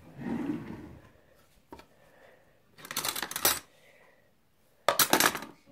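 Metal cutlery clattering in two short rattling bursts, about three seconds in and near the end, as teaspoons are rummaged for, with a softer rustle and a single click before them.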